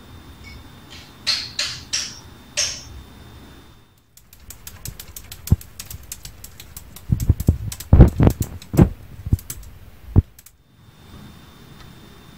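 Four short scratchy bursts, then a quick run of clicks and taps, with several heavier thumps in the middle. It stops about ten seconds in.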